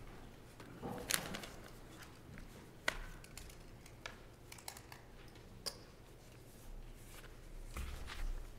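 Scattered small clicks and knocks in a quiet church as people handle papers and books and shift in wooden pews. A few sharp clicks stand out, and there is a low thump near the end.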